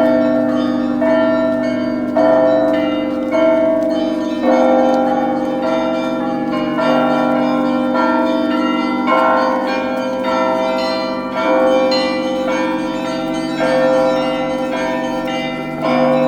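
Russian Orthodox church bells being rung (zvon): several bells of different pitch struck by hand in a repeating pattern, about a strike a second, over the steady hum of a larger, deeper bell.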